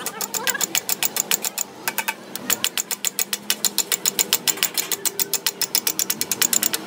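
Rapid hammer taps, metal on metal, onto a steel punch held against the parts of a Fiat 680 tractor gearbox, about six or seven blows a second with a brief pause about two seconds in.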